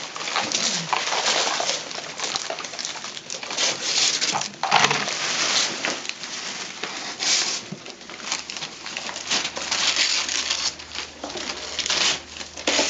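Wrapping paper rustling and tearing in irregular, crackly bursts as presents are unwrapped.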